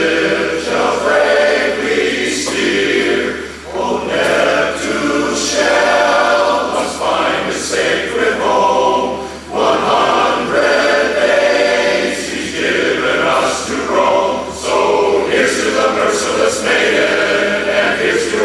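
Barbershop chorus of men's voices singing a cappella in close harmony, in short sung phrases.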